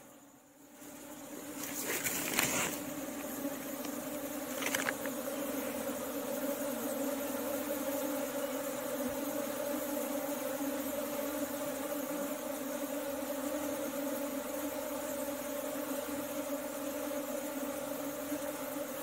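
Honeybees from a colony moved from a hollow log into a wooden hive box, humming steadily as they fly around and crawl over a hand. The hum swells up over the first couple of seconds and then holds, with two brief rustles around two and five seconds in.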